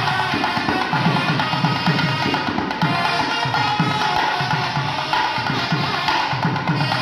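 Kerala temple drum ensemble: barrel drums mounted on stands played in a fast, steady rhythm, several strokes a second.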